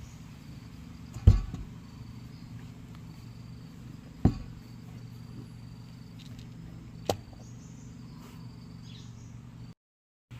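Three sharp knocks about three seconds apart, the first the loudest, over a steady low hum and faint insect chirps; the sound cuts out briefly near the end.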